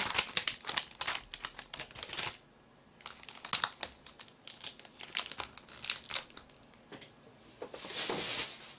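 Thin plastic film being peeled off a takeout food tray and crumpled, crackling in irregular spurts, with a longer rustle near the end.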